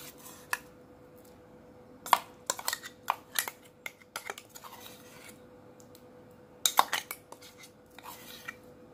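Metal spoon scraping and knocking against a mixer-grinder jar and the rim of a kadhai in irregular clusters of clinks, loudest near the end, as ground curry-leaf paste is scraped into oil. A faint steady hum runs underneath.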